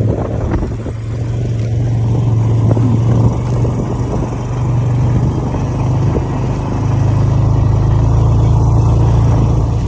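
Four-wheeler (ATV) engine running steadily under way, a constant low drone with rough rumbling noise over it.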